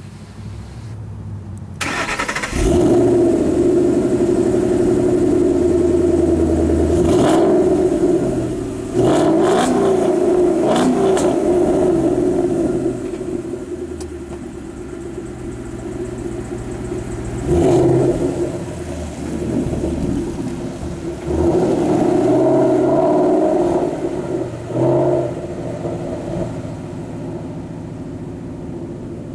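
V8 muscle car exhaust: the engine starts about two seconds in, then idles and is revved several times in short blips.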